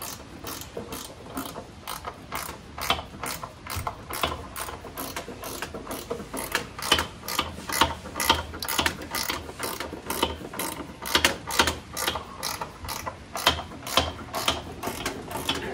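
Hand ratchet wrench clicking in repeated strokes, about three clicks a second, as the upper control arm mounting bolts are worked loose at the shock tower.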